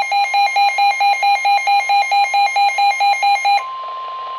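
Weather radio alert going off: a rapid beeping alarm, about four beeps a second, changes about three and a half seconds in to a single steady tone, the warning alert tone that comes before a severe thunderstorm warning is read.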